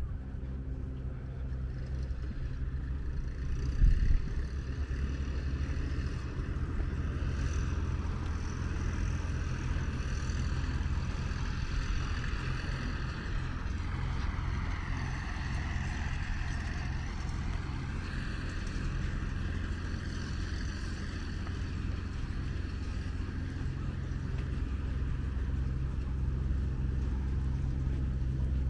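A motor vehicle's engine runs steadily with a low hum and a fainter whine above it. The whine's pitch sags and comes back up about halfway through. There is a single short thump about four seconds in.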